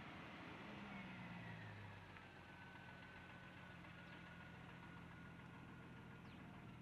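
A faint engine idling, its pitch settling lower over the first couple of seconds and then holding steady.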